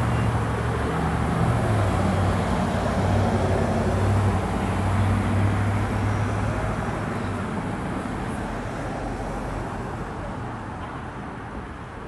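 Street traffic: a motor vehicle's engine hums low and steady close by, then fades gradually over the second half.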